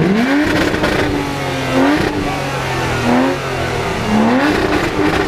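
Aston Martin sports car engine revving as the car crawls past: a sharp rise in pitch at the start, then a steady hold broken by three short throttle blips, each a quick rise in pitch.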